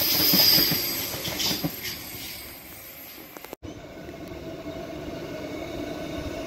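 Queensland Rail electric multiple-unit train passing close by, wheels clacking over the rail joints with a high hiss, fading away. About halfway through, a sudden cut to another electric train approaching, its steady hum growing louder.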